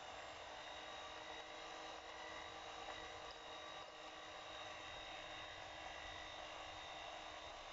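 Electric hand mixer running faintly at a steady speed, its beaters whisking eggs and sugar.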